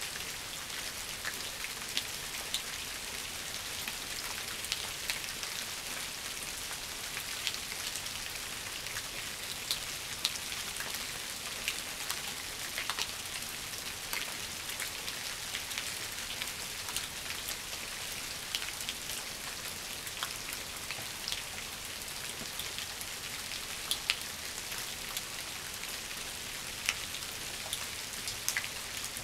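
Steady rain falling on shrub foliage and fallen leaves: an even hiss with many scattered sharp ticks of single drops.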